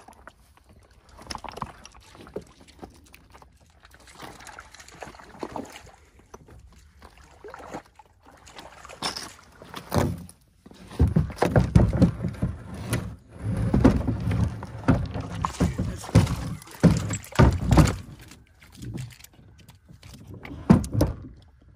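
Kayak on the water being paddled, with paddle splashes and irregular hollow knocks against the hull. It is quiet at first, then much busier and louder from about halfway in, easing off near the end.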